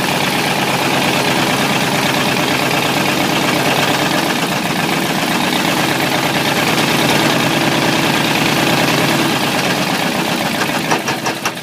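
Ford 351 Windsor V8 with a spun bearing, running steadily and loudly. A quick run of sharp ticks comes in near the end.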